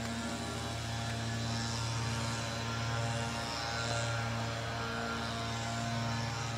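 Steady low mechanical hum, a constant pitched drone with overtones, with faint soft swishing from a detailing brush scrubbing the seams of a foam-covered car.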